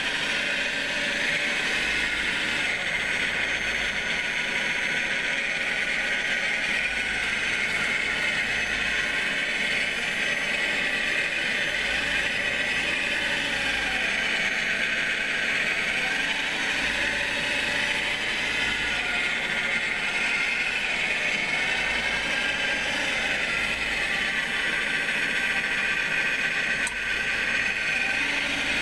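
Radio-controlled scale model of a Cat 966 wheel loader working: a steady mechanical whir that swells and eases a little as it moves and digs.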